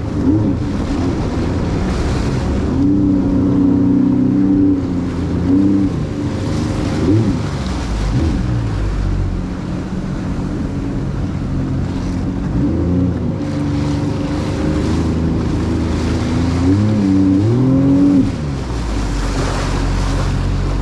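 Jet ski engine running hard, its pitch dropping and climbing again several times as the throttle is worked, over rushing water and wind noise on the microphone.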